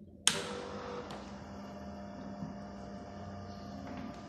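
The power switch on a 1983 Datapoint 1560 computer clicks on, and the machine starts up with a steady electrical hum, with a second, smaller click about a second later.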